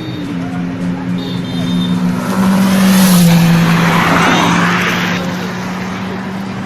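Kawasaki sport motorcycle engine running at a steady pitch, with a louder rushing noise that swells for about three seconds in the middle and then fades back.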